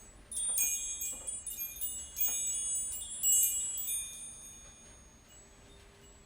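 Chimes played in a quick flurry of bright, high ringing tones for about three seconds, then dying away.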